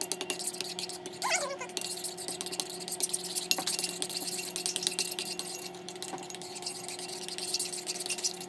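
A metal spoon scraping and clicking against a ceramic bowl as white glue and baking soda are stirred together, in quick irregular strokes, over a steady low hum.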